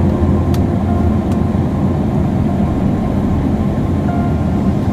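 Car driving, heard from inside the cabin: a steady low rumble of engine and road noise. Two sharp clicks come in the first second and a half.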